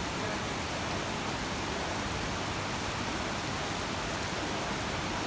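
Heavy rain pouring onto a paved road and pavement, a steady, even hiss.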